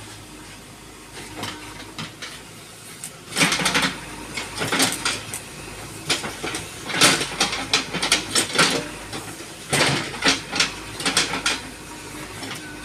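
JCB 3DX backhoe loader's diesel engine running steadily while the backhoe digs, with clusters of metallic clanking and scraping from the bucket working soil and stones, starting about three seconds in.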